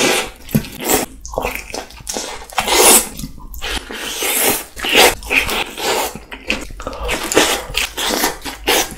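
Close-miked biting and chewing of a pizza slice: a run of irregular bites and mouth sounds, loudest about three and five seconds in.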